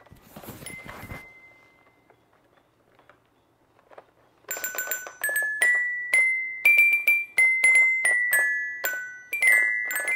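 Non-electronic toy piano with coloured keys, its keys tapped one at a time: a quick string of bright, ringing single notes, two or three a second, starting about four and a half seconds in. A little handling rustle comes in the first second.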